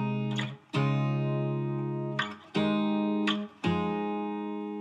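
Background music: a guitar strumming chords, each chord left to ring for a second or two before the next is struck.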